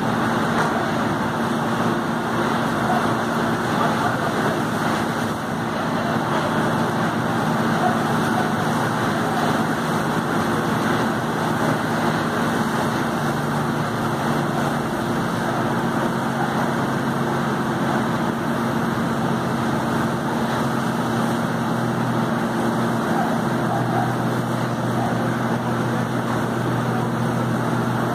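Fire engine's engine running steadily to drive its pump, with the rushing hiss of a fire hose's water jet spraying onto a burning car.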